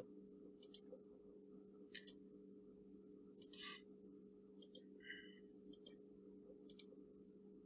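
Faint computer mouse clicks, about eight, irregularly spaced roughly a second apart, as edges are selected one by one, over a low steady hum.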